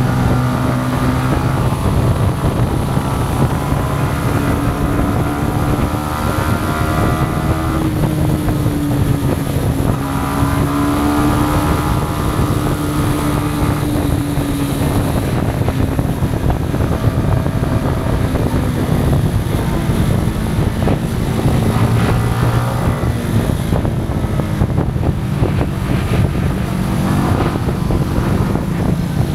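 Yamaha MT-125's single-cylinder four-stroke engine running under way, its pitch rising and falling gently with the throttle, with wind rushing over the microphone.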